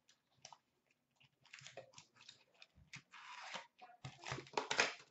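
Crinkling, rustling packaging as a small box of hockey cards is opened by hand and the stack of cards is slid out of its sleeve. It comes as short, scratchy spells that grow busier and louder toward the end.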